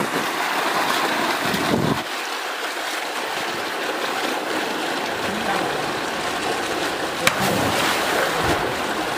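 Steady rush of water pouring from a tube well's outlet pipe into a concrete tank, with swimmers splashing in it. A single sharp click about seven seconds in.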